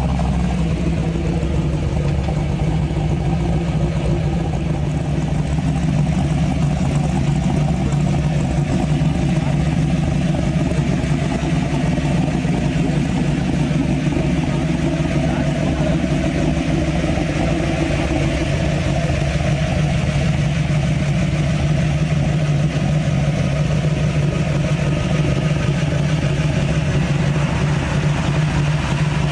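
Ford Mustang GT500's V8 engine idling steadily.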